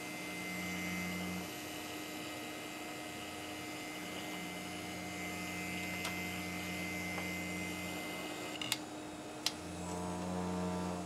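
Old SCSI hard drive trying to spin up, a low drone that starts and stops three times over the steady hum of the running equipment, with a few sharp clicks near the end. The owner takes it for a failing drive with its heads out of whack, vibrating badly as it turns.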